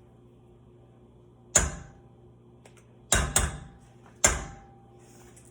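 Four sharp clacks of kitchenware: one, then two close together, then one more, each with a short ringing tail, over a faint steady hum.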